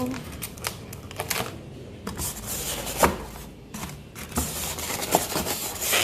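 Packaging being pulled and torn off a new refrigerator: rustling and rubbing with scattered clicks and knocks, the sharpest knock about three seconds in.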